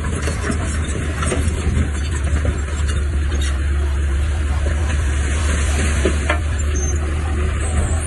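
Heavy earthmoving machinery at work: a diesel engine running with a steady low drone, and a dense, gritty crackle of many small clicks and knocks over it.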